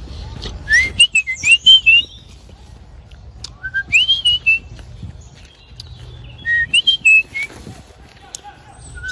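A person whistling short up-and-down phrases in three bursts, calling a wild bird in to the hand.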